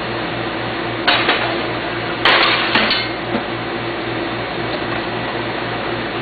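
Metal slicer parts knocking against each other and the sink while being scrubbed in soapy water: a clank about a second in, then a longer clatter of several knocks a second later, over a steady hiss and hum.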